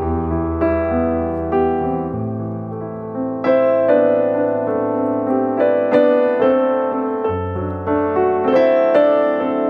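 Background piano music: a slow melody of struck notes and chords over held bass notes.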